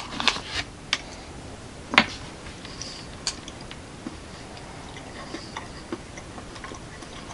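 Mouth sounds of chewing a piece of hard milk chocolate: a few sharp clicks, the loudest about two seconds in, then fainter scattered ticks.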